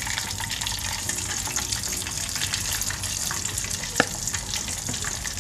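Hot oil sizzling and crackling in a stainless steel pot as floured chicken thighs deep-fry. A single sharp click about four seconds in, as the next raw thigh goes into the oil.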